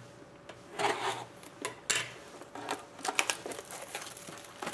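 Scissors cutting the seal of a cardboard trading-card box, then the box handled and turned over: a series of short scraping rasps and light clicks.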